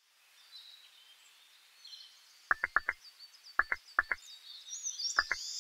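Cartoon outdoor ambience: faint birds chirping, joined from about halfway through by short pitched blips in quick groups of two to four.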